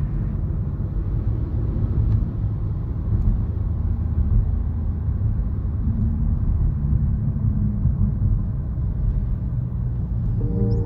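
Low, steady engine and road rumble heard from inside a moving car's cabin.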